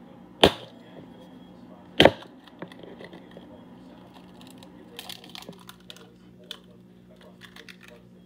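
Kitchen clatter: two sharp knocks, about half a second and two seconds in, then a run of lighter clicks and taps from utensils and dishes being handled. A steady low hum runs underneath.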